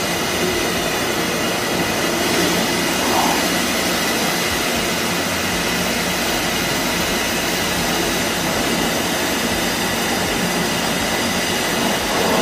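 Steady jet engine noise, an even rushing sound that holds level with no change.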